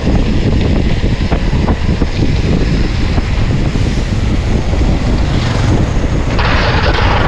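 Wind buffeting the microphone of a mountain bike's ride camera, over rolling tyre noise on rough concrete with small knocks and rattles from the bike. About six seconds in, a louder hiss joins.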